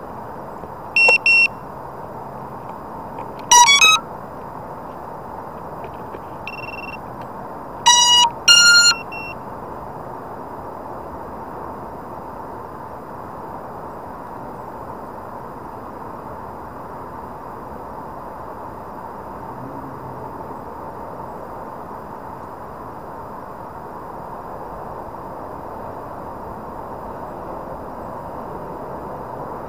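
Electronic beeps and rising tone runs from the DJI FPV drone system: two short beeps about a second in, a quick rising run of tones near four seconds, then two more rising runs around eight seconds. Underneath is a steady rushing noise with a faint steady tone.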